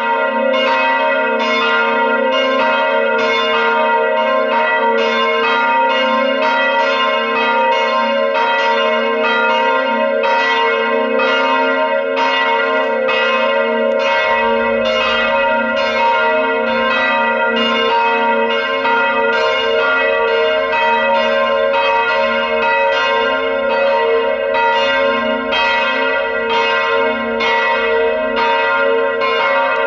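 Church bells pealing: several swinging bells striking in an overlapping, continuous pattern of about two strokes a second, rung to call people to the Saturday evening mass.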